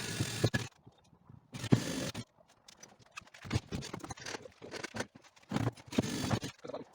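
Scraping and knocking from hands-on building work: three short bursts of scraping with sharp knocks and clicks, near the start, about two seconds in and about six seconds in, with quieter scraping and taps between.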